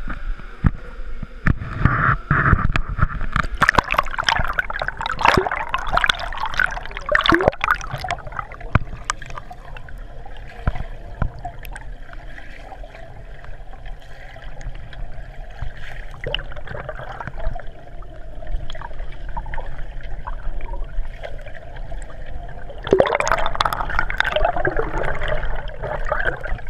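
Pool water splashing and gurgling, picked up by a camera at and under the surface. Busy splashing with many clicks at first, then a quieter, muffled stretch over a steady low hum, and loud splashing again near the end.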